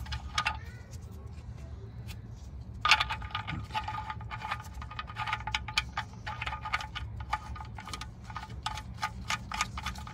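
Oil drain plug being turned in by hand on a 1997 Subaru Legacy's oil pan: rapid, uneven small metallic clicks with a slight ring, growing dense from about three seconds in.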